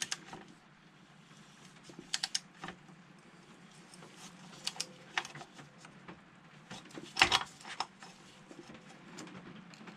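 Scattered clicks and clinks of a torque wrench and cup-type filter wrench on a motorcycle's spin-on oil filter as it is done up to a light 10 Nm and the cup is worked off. The loudest clatter comes a little after seven seconds.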